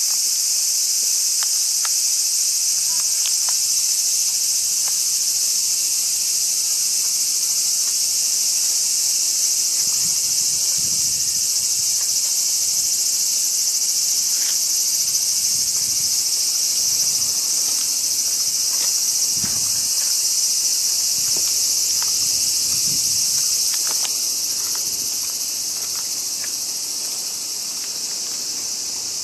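A loud, steady chorus of summer cicadas singing without a break, easing slightly near the end. Faint knocks and footsteps come and go underneath.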